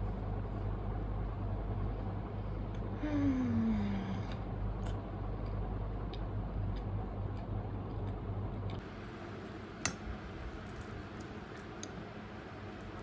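Soft eating sounds over a low steady hum of room tone; the hum drops away about nine seconds in. About ten seconds in comes a single sharp click of a metal fork on a glass plate.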